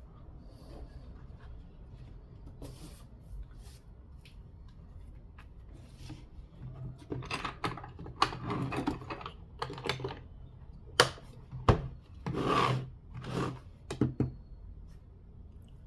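Hand tools and their case being handled: rubbing and scraping, busier in the second half, with a few sharp clicks.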